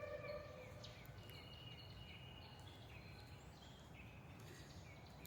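Faint outdoor ambience with scattered short, high bird chirps and calls from small birds, and a brief held call in the first half second.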